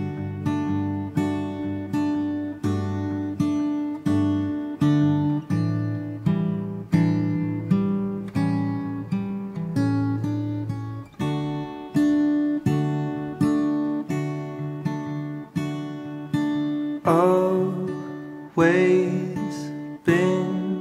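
Steel-string acoustic guitar played solo, a steady picked pattern of ringing notes and chords at about two strokes a second. Near the end a man's singing voice comes in over the guitar.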